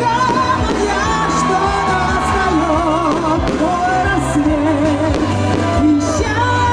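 Live amplified pop song: a sung melody over a band backing with a steady bass line, the crowd singing along.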